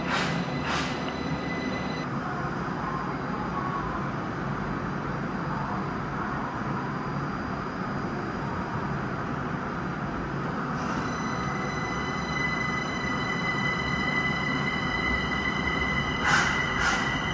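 Linimo HSST maglev train running: a steady rumbling noise with a high electric whine that grows stronger about two-thirds of the way in. Short bursts of hiss come twice at the start and three times near the end.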